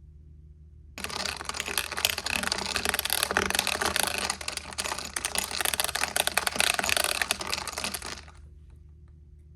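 Fast typing on a computer keyboard, a dense run of key clicks that starts abruptly about a second in and stops about a second before the end.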